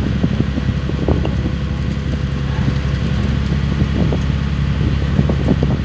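Boat engine running steadily with a low drone, with small irregular knocks and splashes over it.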